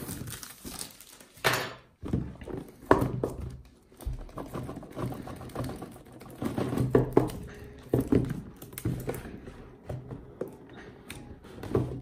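Hands handling and opening a shrink-wrapped cardboard box: the plastic film crinkling, with dull thunks of the box knocking on a wooden table.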